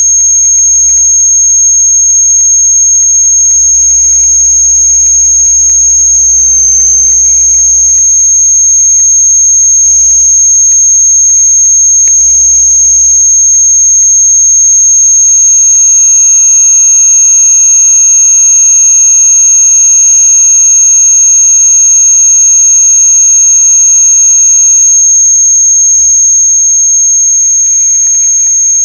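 Harsh electronic noise music: a loud, piercing high tone is held throughout over a low hum, with layered droning tones coming and going. From about halfway in until a few seconds before the end, a cluster of sustained mid-pitched tones joins the texture.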